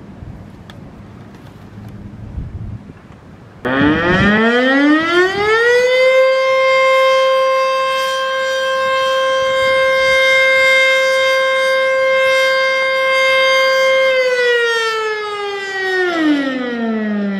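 American Signal Corporation OM-102 single-phase outdoor warning siren starting about three and a half seconds in, winding up quickly to one steady wail, holding it for about eight seconds, then winding down near the end. Wind rumbles on the microphone before it starts.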